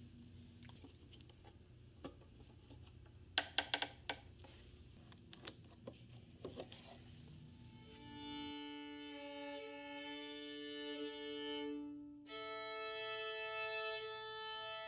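Quiet handling noises with a quick run of sharp clicks about three and a half seconds in, then a solo violin playing long held notes from about eight seconds in, breaking off briefly near twelve seconds and carrying on.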